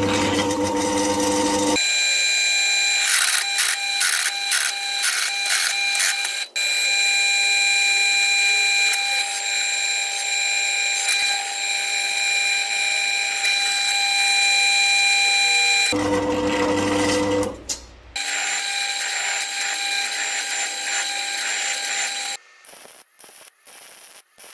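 Electric power tool running with a steady high whine, broken twice by a short lower-pitched stretch. It stops near the end, leaving a few light clicks.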